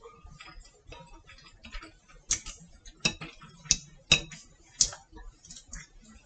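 Chopsticks clicking against a plate while picking up food: soft scattered ticks, then five sharper clicks in the middle.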